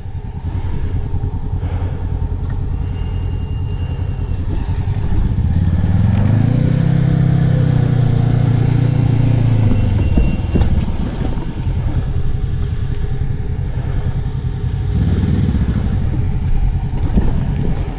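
Polaris RZR side-by-side engine revving under load. It climbs about five seconds in, holds high for several seconds, eases off, then revs again near the end.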